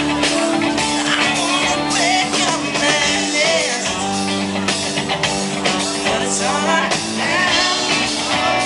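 Live rock band playing with a male lead vocal: electric guitar, bass and drums under the singing.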